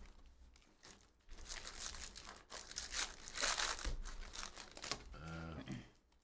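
Foil trading-card pack wrapper being torn open and crinkled by hand, in irregular rustling rips, then the cards slid out. A short hum of a voice near the end.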